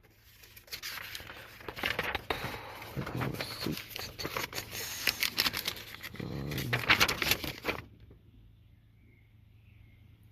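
Rummaging and rustling of paper, a receipt being searched for and handled, with many small crackles and clicks. It stops about eight seconds in.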